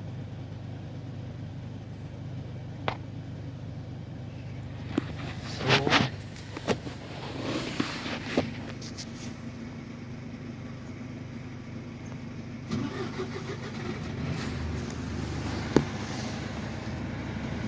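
A long train running past: a steady low rumble with scattered sharp clanks and knocks, growing a little louder after about thirteen seconds.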